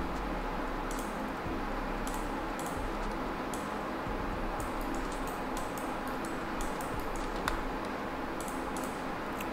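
Scattered computer mouse clicks and keyboard taps over a steady low hiss and hum, with one brief rising blip about seven and a half seconds in.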